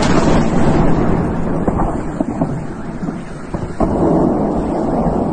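Blast of a large explosion arriving suddenly, followed by a heavy continuous rumble with scattered crackles; another sharp crack about four seconds in.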